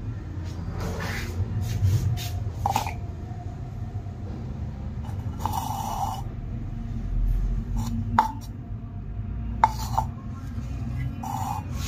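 Drinking cups being handled and moved about on a hard tabletop: a few short knocks and clinks that ring briefly, over a steady low hum.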